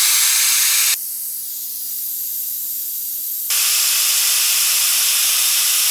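Air-driven vacuum brake bleeder hissing as it sucks old brake fluid out through the caliper's bleeder valve. The loud hiss softens to a quieter hiss with a low hum about a second in, then goes back to full strength a couple of seconds later.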